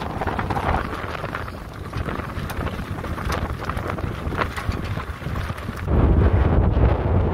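Wind buffeting the microphone aboard a sailing yacht beating upwind in a fresh breeze, with light irregular crackles. About six seconds in, the wind noise turns much louder and deeper.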